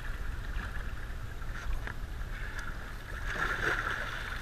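Shallow water splashing, loudest near the end, over a steady background of wind and water noise.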